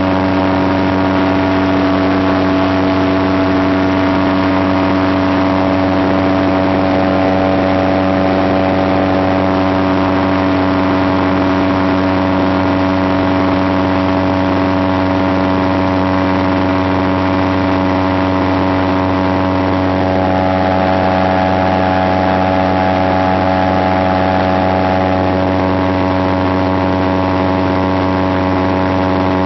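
Light aircraft's engine and propeller running steadily, heard from inside the enclosed cockpit in flight: a loud, even drone with a slight shift in its upper tones about two-thirds of the way through and again near the end.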